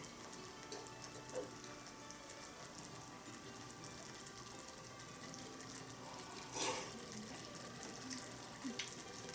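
Offal hotpot simmering in a small cast-iron pot over an alcohol stove: a faint, steady bubbling sizzle of the broth, with one brief louder noise about two-thirds of the way through.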